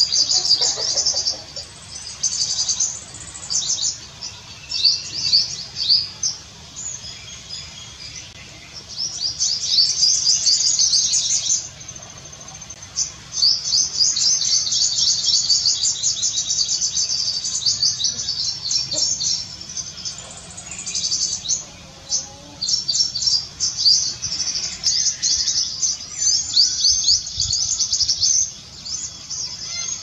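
Male purple sunbird singing: rapid, high-pitched twittering in runs of several seconds with brief pauses between them.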